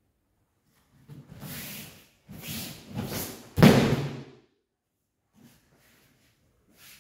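A judoka is thrown and lands on the tatami mats in a breakfall, hitting them with one loud thud about three and a half seconds in. Before it come a couple of seconds of shuffling feet and jackets on the mat as the throw is set up.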